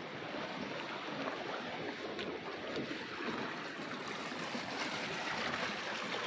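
Steady lakeside water noise: small waves lapping at a wooden dock, an even rushing sound with no engine note or distinct splashes.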